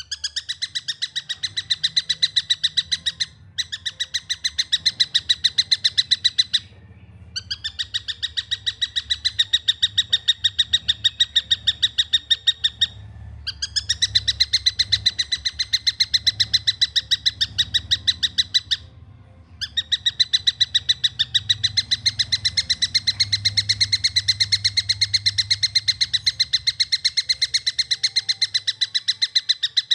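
A young tengkek buto kingfisher calling in long, fast runs of short, evenly spaced, high-pitched notes. The runs break off briefly four times.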